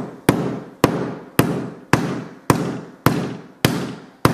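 Heavy steel hammer striking an iPhone 5C's cracked glass screen again and again, eight hard blows at about two a second, each a sharp bang with a short ringing decay.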